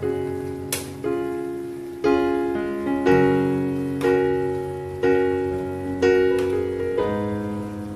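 Background piano music: slow chords, a new one struck about once a second, each fading away before the next.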